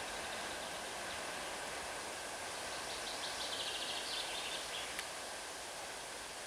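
Freight train of empty open wagons rolling away on the track, a steady faint rumble and hiss that slowly fades. About three seconds in there is a short burst of rapid high chirping.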